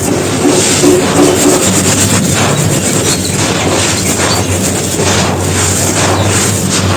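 Soft, dusty brick crumbling and crunching: a dense run of dry crackles and crunches with no break.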